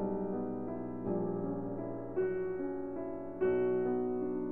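Background piano music: slow held chords, a new chord struck about once a second.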